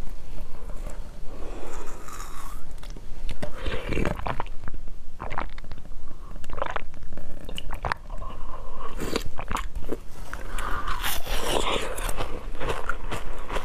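Close-miked biting and crunching into a frozen, frost-covered corn-cob-shaped piece, with chewing between the bites: many sharp crackling crunches in irregular runs.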